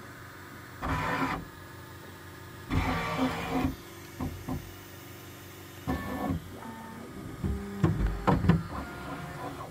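Bambu Lab X1 Carbon 3D printer's stepper motors moving the toolhead and bed in short bursts during its start-up calibration routine. Each move is a brief whine held at one pitch.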